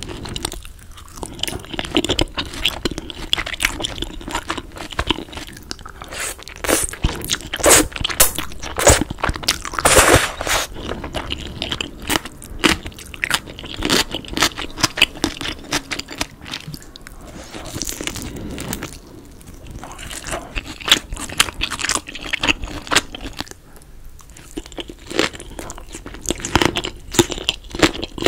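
Close-miked crunching and chewing of crispy batter-fried tangsuyuk (sweet and sour pork), with irregular crackling bites. Near the end it moves to chewing green onion kimchi with noodles.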